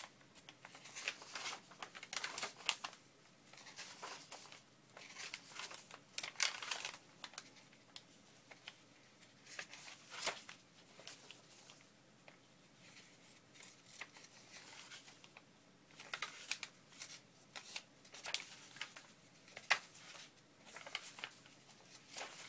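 Sheets of paper being handled, shuffled and slid against each other in irregular rustles and crinkles, as stacks of journal papers are gathered and looked through.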